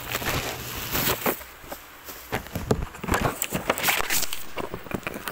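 Irregular light taps and knocks, several a second, with no steady sound beneath them.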